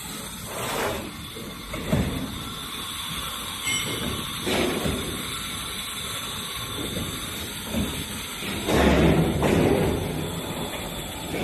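CNC sheet-metal folding machine (press brake) working, a steady mechanical hiss with a few short clunks, growing louder and busier for about two seconds near the end.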